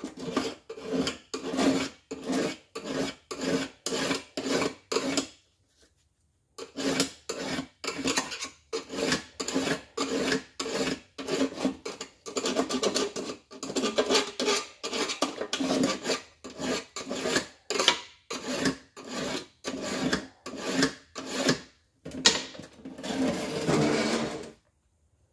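Hand file scraping back and forth along the edge of a steel Moroso big-block Chevrolet oil pan, in even strokes about two a second. There is a pause of about a second some five and a half seconds in, and the filing stops just before the end.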